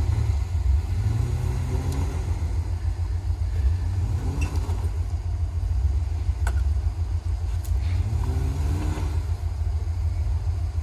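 Off-road vehicle engine running with a deep steady rumble, revving up briefly three times: about a second in, around four seconds in and near the end. A few faint knocks are heard.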